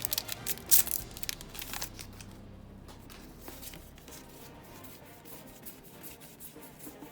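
A foil trading-card booster pack being torn open and crinkled: a quick run of crisp tearing and crackling over the first two seconds, then quieter handling.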